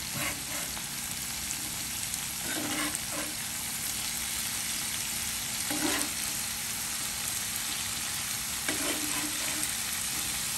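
Masala-coated prawns sizzling steadily in hot coconut oil over a low flame, with a spatula scraping the pan and turning them over five or so times.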